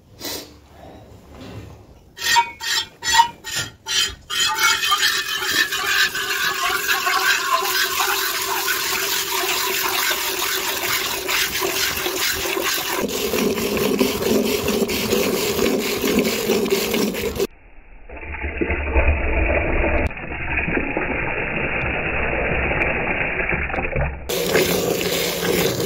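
Buffalo milk squirting from the teats into a steel pail during hand milking: a few sharp spurts about two seconds in, then a steady rushing hiss of milk streams splashing into the bucket. About two-thirds through the sound turns duller and muffled.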